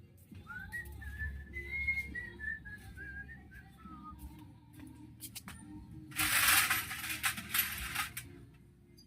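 A person whistling a short wavering tune for about three and a half seconds, then a few sharp metallic clicks and a loud hiss lasting about two seconds.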